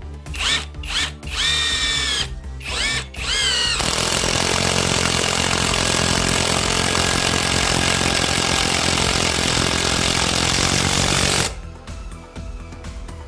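Chinese-made cordless driver driving a long screw into a wooden beam. It starts with a few short spurts of the motor whining up and down, then runs hard and unbroken for about eight seconds under load, and stops abruptly.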